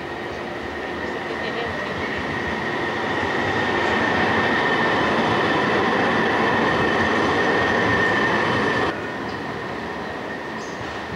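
CAF tram passing close by on street track: the rumble of its wheels on the rails swells as it approaches, with a steady high whine running over it. The sound drops suddenly about nine seconds in.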